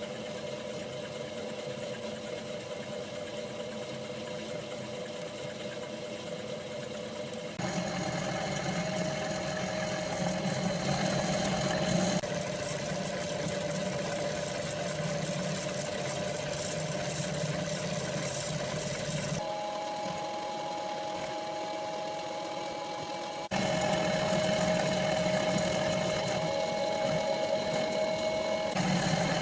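Homemade milling machine running a long automatic cut on a steel part: a steady motor and cutter whine with a grinding milling noise. Its pitch and loudness change abruptly three times.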